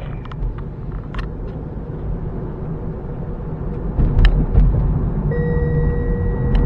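Road and tyre noise inside the cabin of a Tesla electric car, a low rumble that grows louder about four seconds in as the car speeds up. A steady high tone joins a little over a second later.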